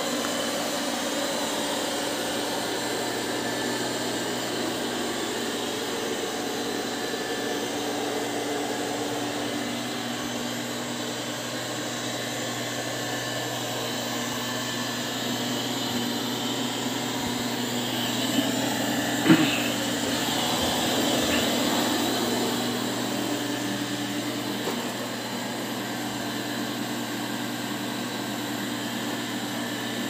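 Midea M6 robot vacuum running steadily, a continuous motor and suction-fan whir. About two-thirds of the way through there is one sharp knock, and the running noise swells slightly for a few seconds around it.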